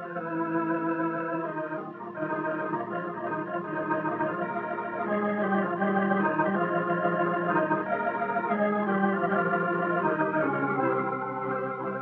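Organ music on the film's soundtrack: held chords that change every second or so, with a lower melody line coming in about halfway through.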